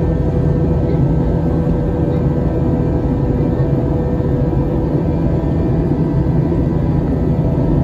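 Jet airliner cabin noise during the climb after takeoff: a steady, low rush of engine and airflow heard inside the cabin, with a few steady humming tones over it.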